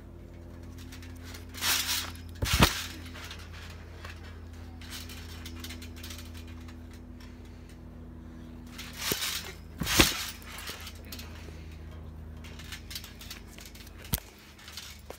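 Trampoline mat thudding under a person's landings: a pair of strikes about two seconds in and another pair around ten seconds in, the second of each the louder. A steady low hum runs underneath.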